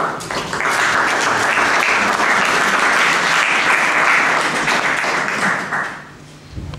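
Audience applauding for about six seconds, then dying away near the end.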